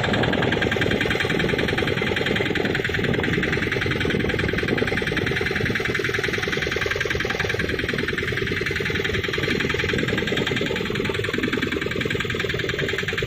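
Fishing boat's engine running steadily, a fast even chugging.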